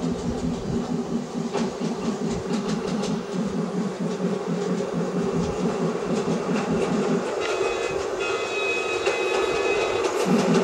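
Miniature ride-on train running along a garden railway track as it approaches, with repeated clicks of the wheels over the rail joints and a steady low rumble that stops about seven seconds in. A steady high tone of several pitches sounds for the last few seconds.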